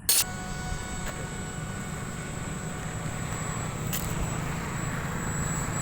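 Electric motor and propeller of a radio-controlled airplane running with a steady whine, opening with a sharp knock.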